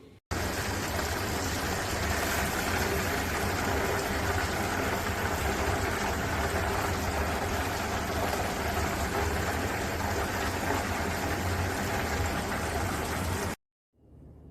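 Hot oil bubbling and sizzling steadily in an electric deep fryer as food fries, a dense even hiss over a low rumble, starting and stopping abruptly.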